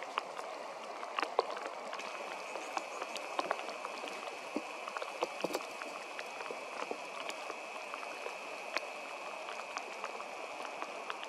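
Light rain falling in eucalypt bush: a steady hiss with many small drops ticking close by. A thin, steady high tone comes in about two seconds in and holds.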